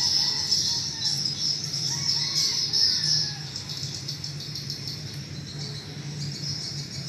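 Morning chorus of birds chirping densely and continuously, with insects mixed in, over a steady low hum; it eases a little about three seconds in.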